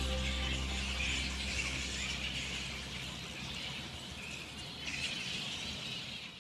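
Dusk outdoor ambience: a steady chorus of insects and birds chirring and chattering, fading slowly before it cuts off at the end. The last sustained notes of background music die away right at the start.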